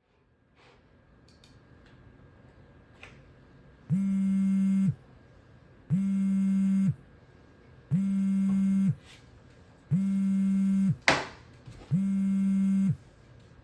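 A buzzy telephone ringing tone: five one-second rings a second apart, starting about four seconds in. A short sharp sound falls between the fourth and fifth rings.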